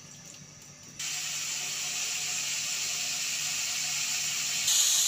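Marinated chicken pieces sizzling in hot oil in an aluminium kadai, a steady hiss that starts abruptly about a second in and gets brighter near the end. A few faint clicks come before it.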